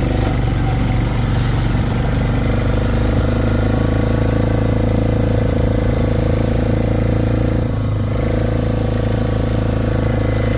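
A four-wheeler's (ATV) engine running steadily as it rides, with a brief drop in the engine note about eight seconds in before it picks back up.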